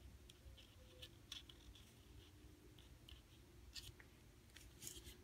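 Near silence: quiet room tone with scattered faint clicks and light paper rustles from hands arranging paper embellishments and decorative paper clips on a scrapbook page.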